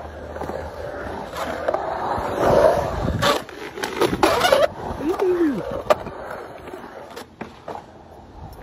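Skateboard wheels rolling through a concrete bowl, broken by several sharp clacks of the board and trucks hitting and grinding on the coping. A brief falling voice sounds about halfway through.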